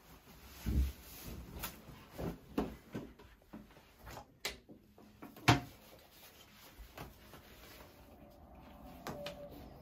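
Handling noises: an irregular string of knocks, clicks and cloth rustles as clothes and things at a bathroom counter are moved, with one sharp knock about five and a half seconds in.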